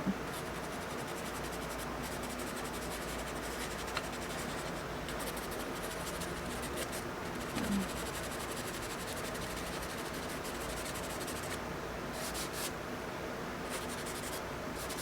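A drawing tool scratching on paper in quick strokes, in runs broken by short pauses, over a steady background hiss.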